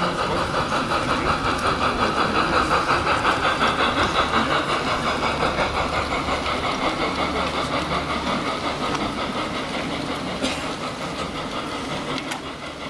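LGB garden-scale model steam locomotive hauling a freight train along the track, giving a steady whine with a regular rhythmic pulsing that fades gradually toward the end as it runs away.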